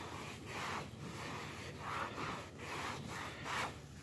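Microfiber towel rubbed back and forth over a vehicle's seat back, wiping off the cleaner after brushing. A run of rubbing strokes, two or three a second, with a short pause about a second in.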